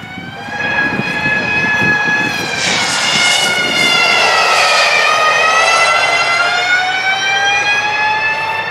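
Electric RX2e rallycross car's motor whine, a high whine of several tones rising as it accelerates. It is loudest and drops in pitch as the car passes, about halfway through, then climbs again as it drives away.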